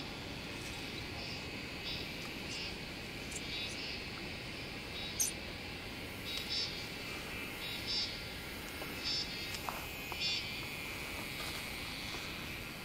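Steady insect chorus, a high buzz with short chirps breaking in about once a second, the sharpest one about five seconds in, over a low, even rushing noise.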